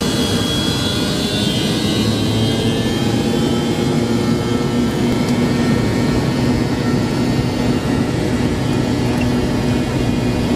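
Jet airliner engines at low power, heard inside the passenger cabin while the plane taxis. A steady hum and rush, with a faint high whine that falls slightly over the first few seconds.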